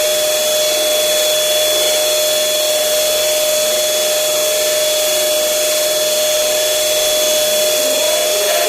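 Electric air blower running steadily, a constant rushing hiss with a fixed whine, typical of a blower pumping up a giant balloon.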